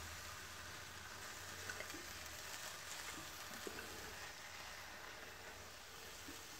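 Faint sizzling of an egg-white omelette in a nonstick frying pan that is still hot with the burner off. A few light taps of a fork against the pan come as the omelette is pushed and folded.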